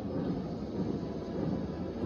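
Low, steady rumbling noise without any clear tone.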